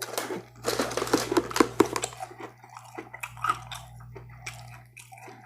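Close-up crunchy chewing of a mouthful of Froot Loops cereal in milk. The crunching is dense for about the first two seconds, then thins out to scattered smaller crunches.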